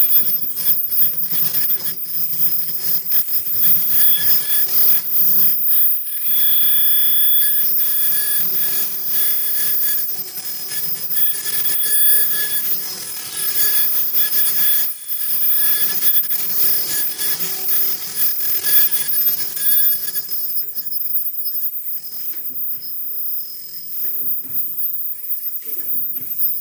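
Automatic face-mask production machinery running: a dense mechanical clatter with steady high-pitched whining tones, the whine stopping about twenty seconds in and the clatter carrying on more quietly.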